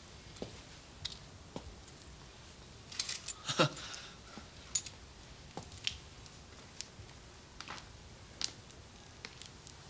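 Scattered light clicks and taps over a quiet background, loudest in a short cluster about three and a half seconds in.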